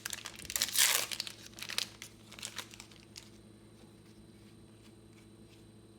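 Crinkling and rustling of packaging and trading cards being handled, a few quick strokes that are loudest about a second in and die away by about three seconds. A faint steady hum follows.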